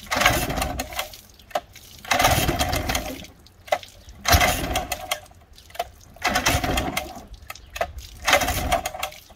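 Old pull-start outboard motor being cranked by hand with its recoil starter: about five pulls roughly two seconds apart, each a second-long rush of rope and turning engine, with a sharp click between pulls. The long-idle motor, set on choke, does not catch.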